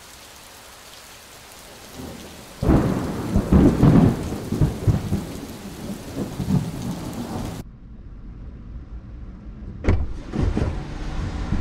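Steady rain with heavy, irregular rolls of thunder. After a sudden cut comes duller rain heard from inside a car, with a sharp knock about ten seconds in as the car door is opened.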